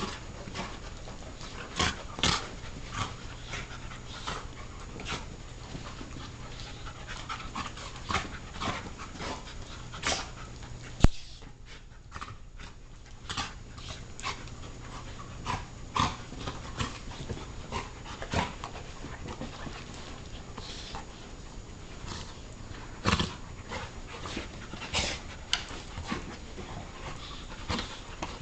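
Two Labrador retrievers play-wrestling: panting, with irregular short sharp noises from the scuffle and one sharper click partway through.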